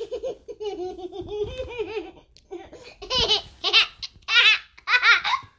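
High-pitched laughter: a long, wavering laugh, then four loud bursts of 'ha' in quick succession in the second half.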